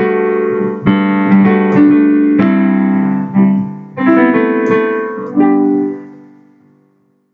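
Piano playing the closing chords of a song, a handful of chords struck one after another and held, the last one dying away to silence near the end.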